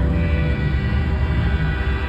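Semi-truck air horns sounding in sustained, overlapping chords over the low rumble of diesel engines.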